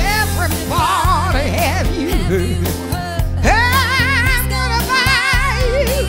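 Soul song: a voice singing long held notes with a wide, wavering vibrato over a band backing with a steady bass line.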